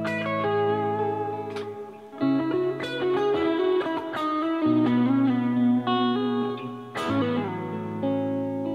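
Tokai ST electric guitar played through an amplifier and recorded with an external microphone: improvised single-note lines and sustained chords. The playing dips briefly about two seconds in, and a hard-picked chord rings out about seven seconds in.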